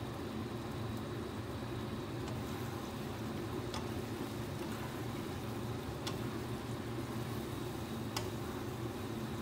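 A wooden spatula stirring food in a thick sauce simmering in a stone-coated nonstick wok, over a steady low hum. A few sharp clicks of the spatula against the pan come at intervals.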